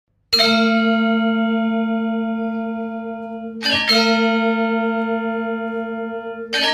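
Intro music of deep bell-like tones: a chord struck once, ringing out and slowly fading for over three seconds, struck again, then a quick cluster of strikes near the end.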